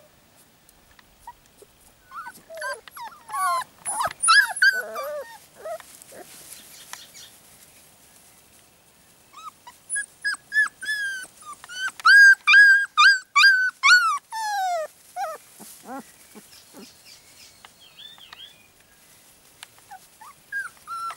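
4½-week-old puppies whining and yelping in high-pitched cries: a cluster of calls a few seconds in, then a long run of repeated cries around the middle, some sliding down in pitch, with fainter whimpers near the end.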